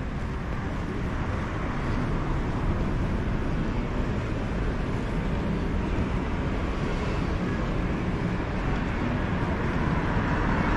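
Steady city street traffic noise, a continuous rumble and hiss with no distinct events, growing a little louder near the end.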